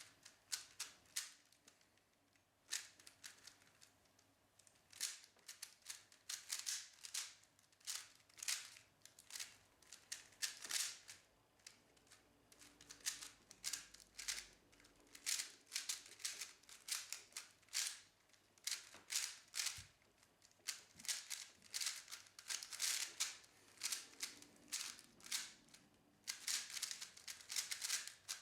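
A Rubik's cube being turned quickly: clusters of sharp plastic clicks and clacks, several a second, in irregular bursts with short pauses.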